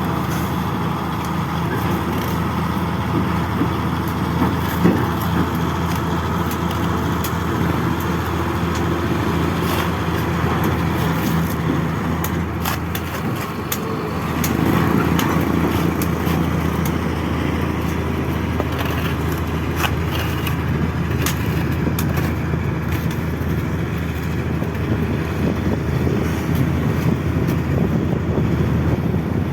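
Diesel engine of heavy earthmoving machinery (bulldozer or excavator) running steadily under work, with scattered sharp metallic clanks; it grows slightly louder about halfway through.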